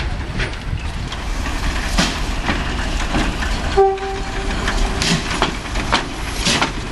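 Small steam locomotive working through a yard, with a low rumble and irregular puffs. About four seconds in it gives a short steam-whistle blast that fades to a weaker held tone for a second or so.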